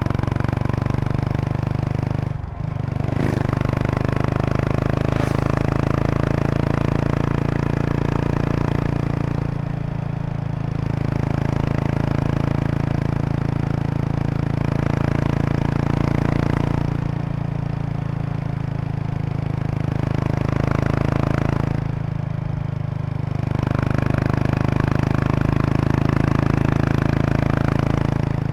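A 2003 Kawasaki Estrella RS's single-cylinder engine running through an aftermarket Daiwa muffler while riding at an easy pace. It dips briefly about two and a half seconds in and eases off and picks up again a few times. A buzzing rattle from the seat bag's stiffening board, resonating with the bike's vibration, runs under the exhaust note.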